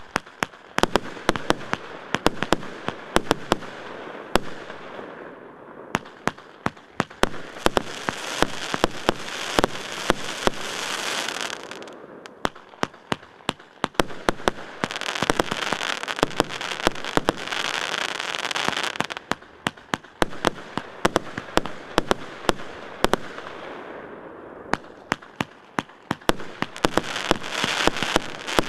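Multi-shot consumer fireworks cake firing: an irregular string of sharp bangs, several a second, over stretches of dense crackling from crackling-effect shells that swell and die away three times.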